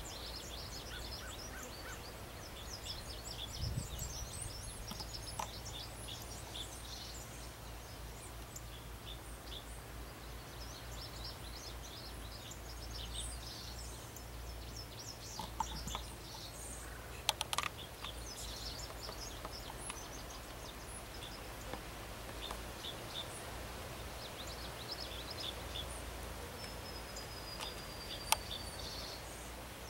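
Songbirds chirping and singing, with many short high notes and trills throughout and one long, slightly falling whistle near the end, over a steady low hum and a few faint clicks.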